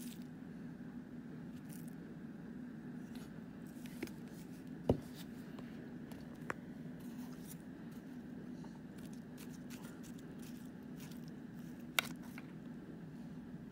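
Steady low hum with scattered small clicks and taps. There is a knock about five seconds in and a sharp click about twelve seconds in.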